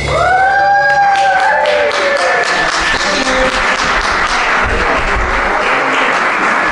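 The last held note of a live acoustic song dies away over the first couple of seconds, while audience applause breaks out about a second in and carries on.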